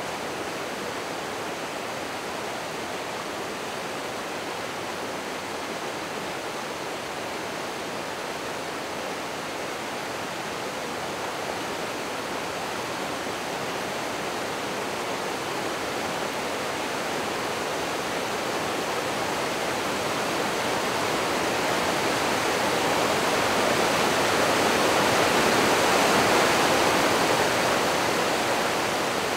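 A steady rushing noise that slowly grows louder about three-quarters of the way through, then eases off near the end.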